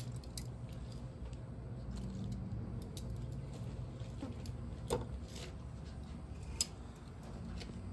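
Metal kitchen tongs and a fork handling lettuce leaves on sandwiches: a few faint clicks and soft rustles, the sharpest about five seconds in and again near the end, over a low steady hum.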